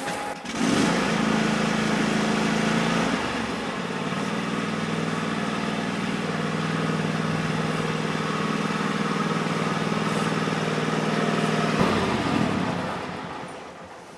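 Small gasoline engine of a yard vehicle running steadily. Its pitch drops a little about three seconds in, then it fades away near the end as the vehicle drives off.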